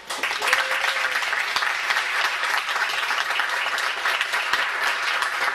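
An audience applauding, a dense steady clapping that starts suddenly at once.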